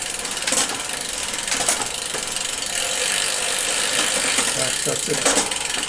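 Bicycle rear freehub ratcheting as the wheel spins with its cranks turned by hand: a rapid, steady run of pawl clicks, with a few sharper clicks from the 1x11 drivetrain.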